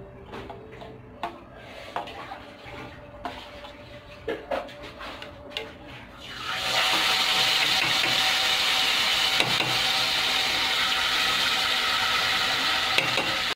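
Scattered light clinks of kitchen utensils, then about halfway through a sudden steady loud sizzle as batter-coated potato vadas are dropped into hot oil in a kadai to deep-fry.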